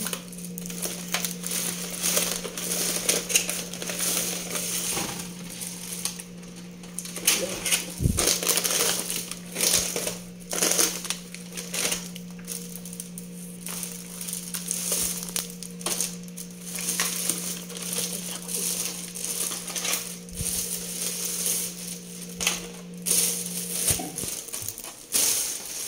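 Thin plastic shopping bags rustling and crinkling in irregular bursts as groceries are taken out of them by hand, over a steady low hum that stops near the end.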